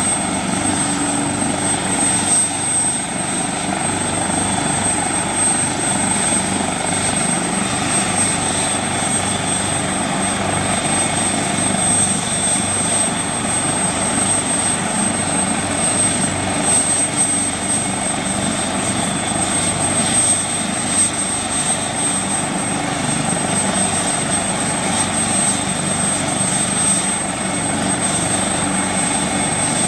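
Helicopter turbine engine and rotor running steadily at close range, with a constant high-pitched whine over the rotor noise.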